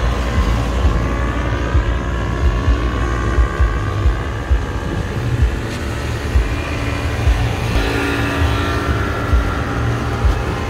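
Outboard motorboat running over the water, with heavy wind buffeting the microphone and a steady, loud rumble throughout.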